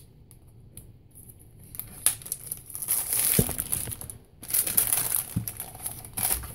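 Clear plastic bags crinkling as they are lifted and handled, in bursts starting about two seconds in, with a couple of soft knocks.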